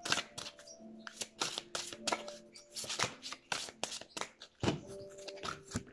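A deck of tarot cards being shuffled by hand: an irregular run of quick card flicks and slaps.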